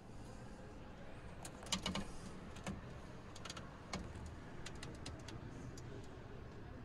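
Low steady hum of a large indoor hall, with a scatter of light clicks and taps between about one and a half and five seconds in, the sharpest near the start of them.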